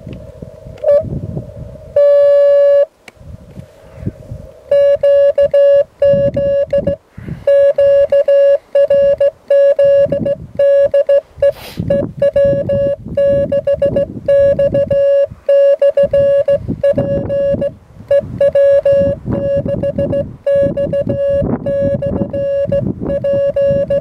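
Morse code (CW) tone of about 600 Hz, keyed by hand on a small Morse key in an on-off rhythm of dots and dashes. One long dash comes about two seconds in, and steady sending runs from about five seconds on. A low noisy rumble sits underneath.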